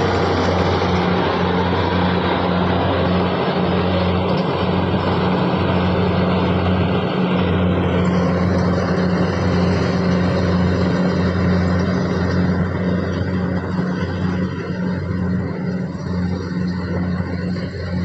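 Kubota DC-70G crawler combine harvester running under load as it cuts rice: a steady diesel engine hum mixed with the noise of its cutter and threshing drum. In the second half the sound grows duller and a little quieter as the machine moves away.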